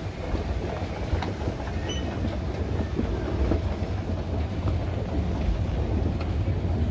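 Escalator running under load as it is ridden: a steady low mechanical rumble with a few faint clicks.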